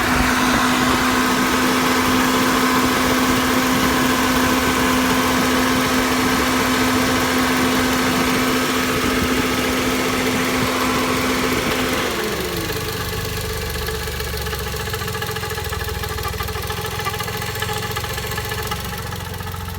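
Toyota Vios Gen 2 engine running with a weird vibrating sound and a steady pitched hum, which the owner puts down to a worn-out water pump assembly. About twelve seconds in the hum slides down in pitch and fades, and the engine carries on with a lower, quieter rumble.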